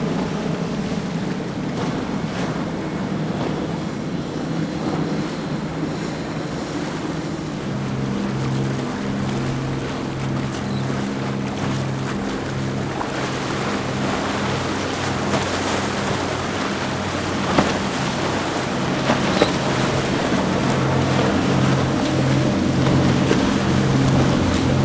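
Outboard-powered boats running at speed, engine drone mixed with the wash of spray and waves and some wind on the microphone. About eight seconds in, the drone of a Dusky 33's twin Suzuki 300 outboards comes up steady and low-pitched, with a few sharp knocks in the second half.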